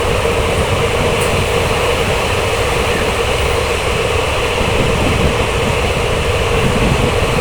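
Passenger train running along the track, heard from on board: a steady, loud rumble of wheels and rushing air with a constant hum.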